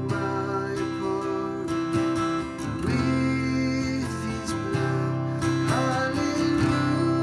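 Acoustic guitar playing slow, sustained chords with picked and strummed notes.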